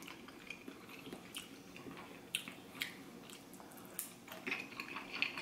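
Faint mouth sounds of a person biting into and eating a steamed soup dumpling (xiaolongbao): scattered small wet clicks and smacks, a few in the middle and a cluster near the end.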